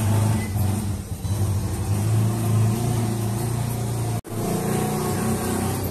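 A steady low engine-like hum, like a motor vehicle's engine running, with a brief total drop-out of sound about four seconds in.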